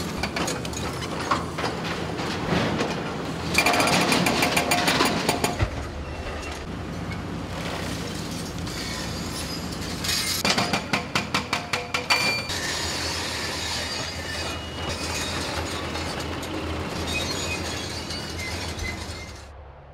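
A hydraulic excavator's diesel engine runs steadily while its demolition crusher jaws bite into reinforced concrete beams, grinding and cracking the concrete. Twice, about four seconds in and again around ten to twelve seconds in, the concrete breaks up in a rapid, loud run of rattling cracks.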